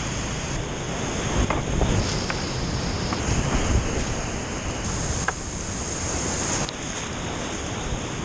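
Whitewater rapids rushing and churning around a kayak running down the rapid. Uneven low thuds of water and wind buffet the microphone, and a few sharp knocks sound at about 1.5, 2.3 and 5.3 seconds in.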